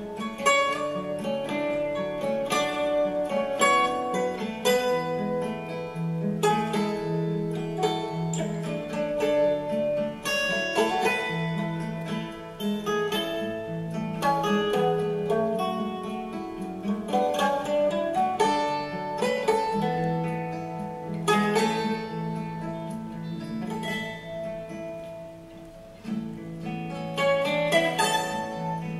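Background music: plucked acoustic guitar playing a steady line of picked notes.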